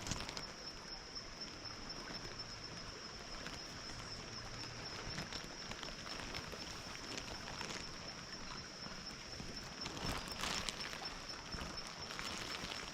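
A steady, high-pitched insect chorus over the rush of a small creek, with a few footsteps and knocks in the water and stones about ten seconds in.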